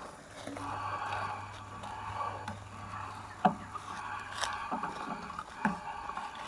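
Footsteps and a mountain bike being walked over dry leaves and dirt: crunching, scraping steps with a few sharp knocks, the loudest about three and a half seconds in.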